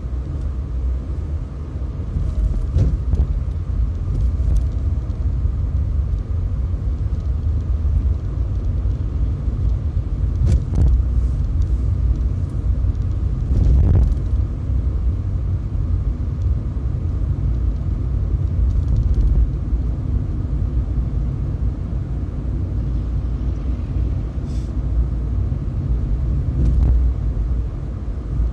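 Steady low rumble of a car driving, road and engine noise, with a few brief knocks along the way.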